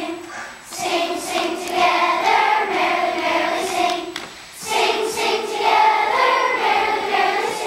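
A group of young schoolchildren singing together as a choir, with a short pause about four seconds in before the singing picks up again.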